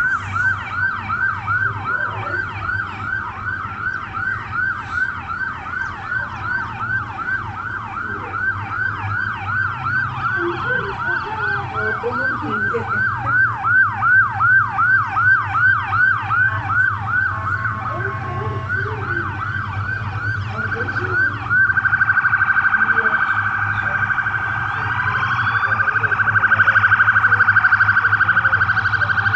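Several police sirens sounding together from the patrol boats, a yelp that rises and falls about twice a second with other sirens overlapping it. About two-thirds of the way through it switches to a fast warble. A low steady drone runs underneath.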